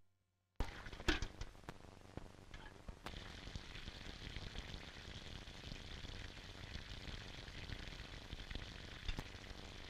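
Surface hiss and crackle of an early-1930s optical film soundtrack, with no dialogue. It opens with a moment of dead silence, then sharp pops come about a second in, the hiss grows stronger about three seconds in, and another pop comes near the end.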